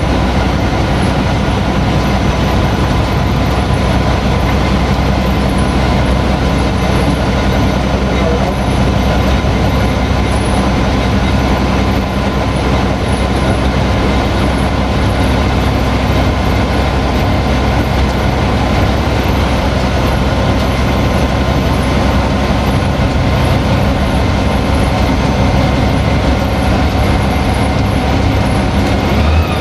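Old Malaxa 1000 diesel railcar running at a steady speed, heard inside the cab: a constant diesel engine drone with wheel and rail running noise.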